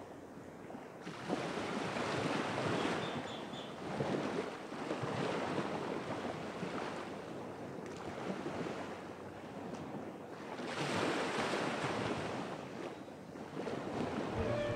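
Small waves washing onto a sandy beach, swelling and falling back every few seconds, with wind on the microphone.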